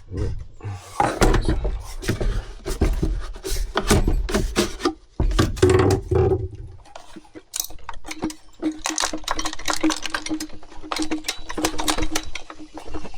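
Hand tools clicking, tapping and scraping against the Stihl BG 65C leaf blower's plastic housing while the primer bulb and its screws are worked at: a fast, irregular run of small hard knocks. A faint low steady hum runs through the second half.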